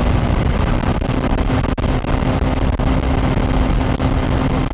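Motorcycle engine holding a steady note at highway speed, about 100 km/h, under heavy wind rush on the microphone.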